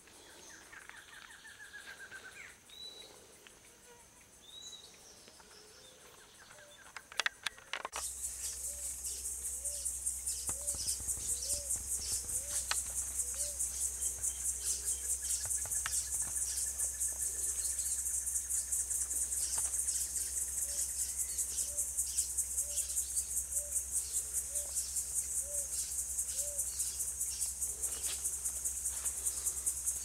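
Faint bird chirps and a short whistled call, then suddenly a loud insect chorus: a high, rapidly pulsing buzz that carries on steadily. Under it a soft low call repeats about once a second.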